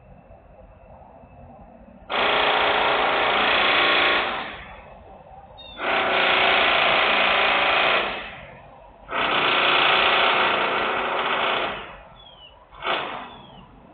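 Loud industrial machine or power-tool noise coming in bursts: three runs of about two and a half seconds each, separated by short lulls, then two brief bursts near the end.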